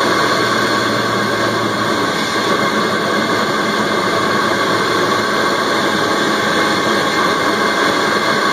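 Intake noise of a Mk3 Ford Focus ST's stock turbocharged engine heard from inside the air box, running steadily with an even rushing hiss and faint steady whine.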